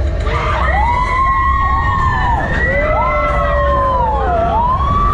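Several riders screaming on a drop-tower elevator ride as it drops, in long overlapping wails that rise and fall in pitch. A steady low rumble runs underneath.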